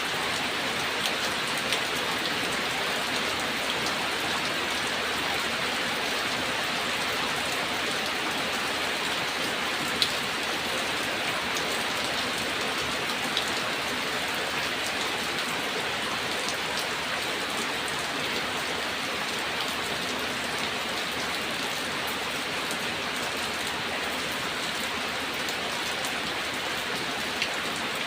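Steady rain falling, an even hiss with individual drops ticking through it. One sharper drop-tick stands out about ten seconds in.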